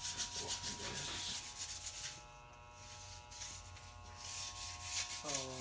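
Hands rubbing and scuffing a rubber windshield seal and molding against a Lexan windshield, an uneven rustling noise that eases off for about a second midway.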